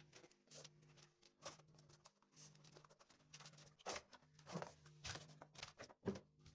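Faint unboxing handling noise: scattered clicks and short rustles of packaging and a heavy-duty stapler being handled, the sharpest click about six seconds in, over a faint steady hum.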